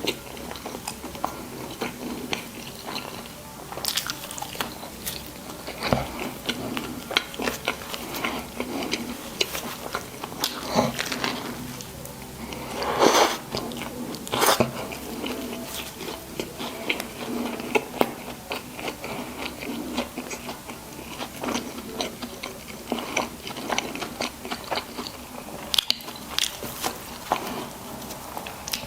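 Close-miked eating: bites and chewing of burgers and fries, with irregular crunches and wet mouth clicks throughout and a few louder bites about halfway through.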